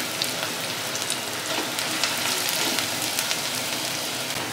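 Sliced onions and whole spices sizzling in hot oil in a pot, a steady crackling hiss, as the onions fry toward light golden.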